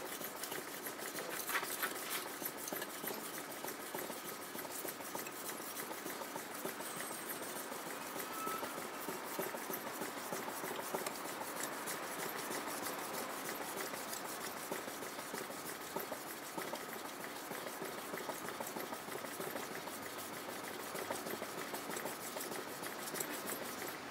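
Kitchen knife blade being honed by hand on a wet natural whetstone, most likely a Tamba aoto: a steady, grainy wet scraping of steel sliding back and forth across the stone.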